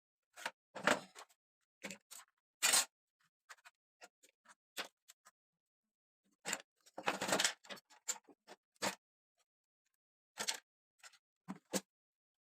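Irregular clicks, taps and short scrapes of hands and small tools working on a radio cassette player, with longer rustling scrapes about a second in and about seven seconds in.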